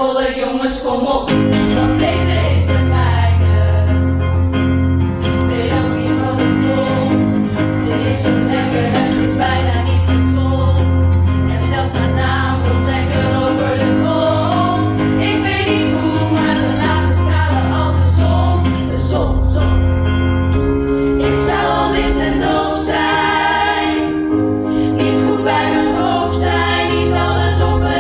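Teenage voices singing a pop-musical song over instrumental backing with long held bass notes, solo lines passing between singers and the group joining together.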